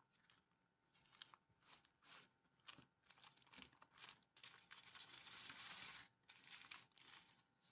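Baking paper crinkling and rustling faintly in short scrapes as hands unroll a sheet of pastry dough and smooth it flat, with one longer continuous rustle about five seconds in.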